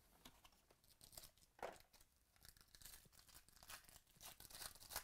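Foil trading-card pack wrapper being torn open and crinkled by hand: a series of short, irregular crackling tears, the loudest about a second and a half in.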